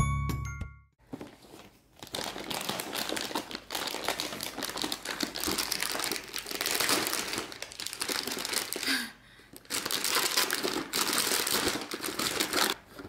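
Plastic wrapping of a parcel crinkling and rustling as it is handled and opened, in long runs with short pauses.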